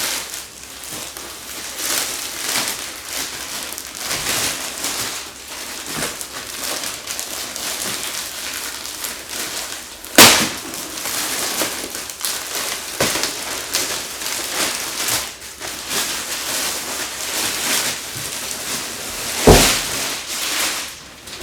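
Packaging crinkling and rustling as a chair seat back is unwrapped and handled. There are two sharp knocks, one about ten seconds in and one near the end.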